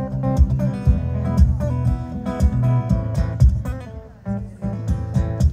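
Solo acoustic guitar playing an instrumental passage: strummed chords with sharp attacks over held low bass notes. The playing eases off briefly about four seconds in, then picks up again.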